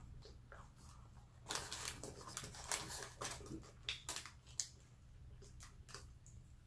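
A person chewing crunchy fried food, with a run of crackling crunches and wet mouth clicks from about a second and a half in to near five seconds, over a steady low hum.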